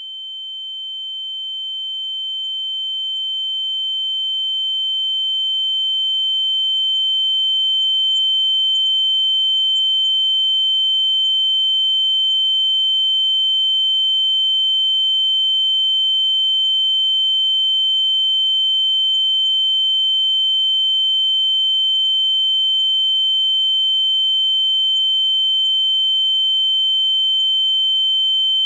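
Ear-ringing (tinnitus) sound effect: a steady high-pitched sine tone that swells up over the first several seconds and then holds at a constant level, with fainter lower and higher tones beneath it.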